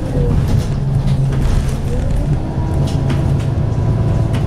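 A Scania L94UB single-decker bus heard from inside the passenger cabin while driving: its rear-mounted five-cylinder 9-litre diesel engine runs with a steady low drone, with occasional short rattles from the body and fittings.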